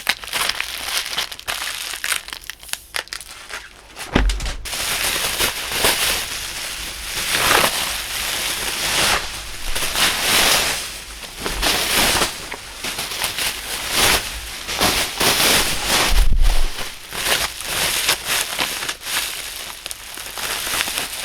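Bubble wrap squeezed and crumpled in hands wearing thick rubber gloves, its bubbles popping. Separate sharp pops for the first few seconds, then from about four seconds in a dense run of crackling pops and crinkling plastic.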